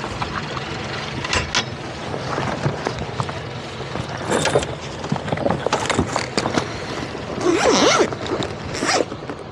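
Rope and gear being handled on a boat deck: scattered knocks, thumps and rustles over a steady low hum, with a louder scraping rustle near the end.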